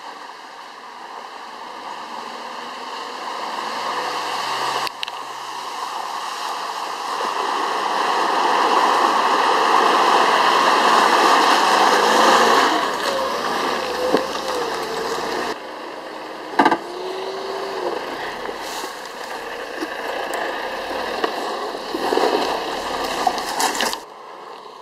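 Suzuki Jimny 4WD driving through a muddy, puddled track, its engine and tyres growing louder as it comes closer, with mud and water splashing. It is loudest about ten seconds in and drops suddenly a few seconds later.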